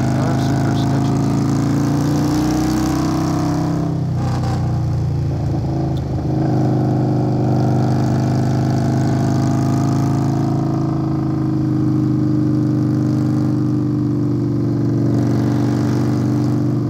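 Indian Scout Bobber's V-twin running through a Hacker Custom Mayhem aftermarket exhaust while riding, a steady engine note that briefly drops away about four seconds in and then comes back and holds.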